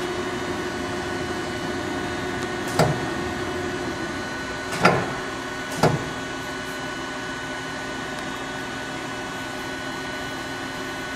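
Powered-up CNC Swiss-type lathe and its bar feeder humming steadily, with three short knocks about three, five and six seconds in as the bar feeder is worked from its keypad.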